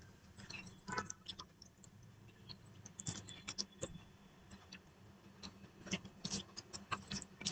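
Faint, scattered clicks and soft smacks of eating by hand: fingers mixing rice and dal on a plate, with a few small mouth sounds.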